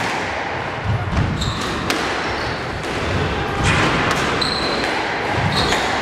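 Squash rally: the ball smacking off rackets and the court walls, with sharp high squeaks of court shoes and footfalls on the wooden floor, echoing in the court.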